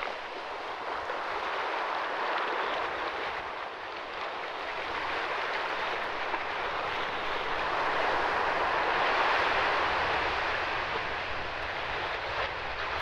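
Steady rushing of choppy lake water and wind at the shoreline, swelling slightly near the middle.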